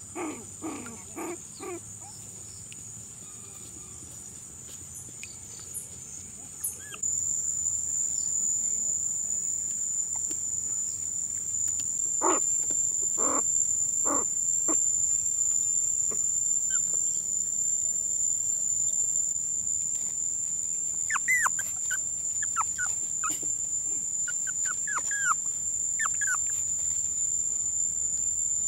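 Forest insects shrilling in a steady high-pitched drone that gets louder about seven seconds in. Over it come a few short squeaks and whimpers from puppies, mostly in the second half.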